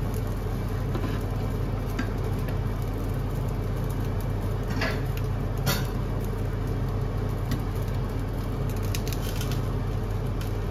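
Stir-fried noodles sizzling in a nonstick frying pan over a steady low hum, with a few sharp taps and scrapes of a spatula against the pan and bowl.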